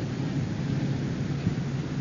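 Steady hiss and low hum from the background noise of an old 1970s conversation recording, with no speech.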